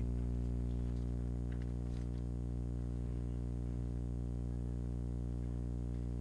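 A steady low hum with many evenly spaced overtones, unchanging throughout, with a couple of faint clicks about two seconds in.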